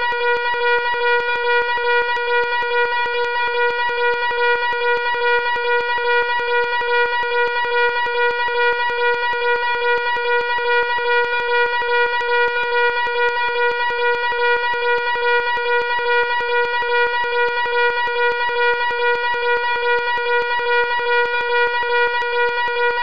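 Loud fire alarm horn sounding continuously: a harsh buzzing tone at one steady pitch, with a slight regular pulse in loudness.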